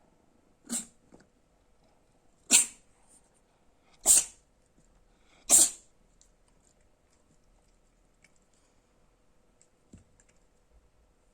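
A cat sneezing four times in quick succession, roughly a second and a half apart, the last three sneezes louder than the first.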